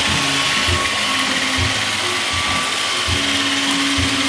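An iRobot Roomba 561 robot vacuum making a straight run, its brush and vacuum motors whirring steadily. Low thumps come about once a second under the whir.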